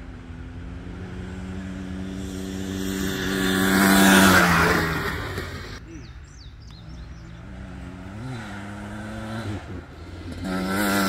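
Off-road racing motorcycle engine at high revs, getting louder as the bike approaches and passes about four seconds in, its pitch dropping as it goes by before fading away. A second bike's engine grows louder near the end as it approaches.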